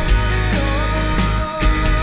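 Band playing a rock-style worship song: grand piano, bass guitar, electric guitar and drums, with a melodic line moving over a steady beat of drum hits about twice a second.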